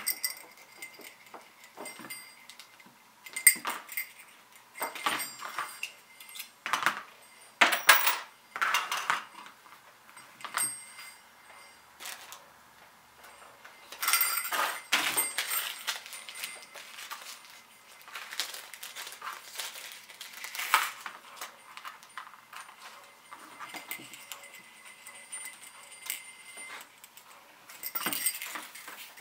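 1-inch brass jingle bells on leather straps jingling and clinking in short, irregular bursts as the straps are handled and set down.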